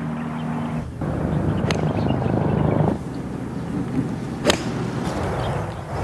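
A golf iron strikes the ball once, a sharp crack about four and a half seconds in, over a steady outdoor background hiss. A fainter click comes earlier.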